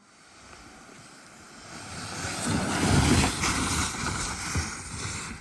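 A kayak hull scraping and sliding down a dirt trail, a rough grinding hiss that builds to its loudest about three seconds in, with a few low knocks.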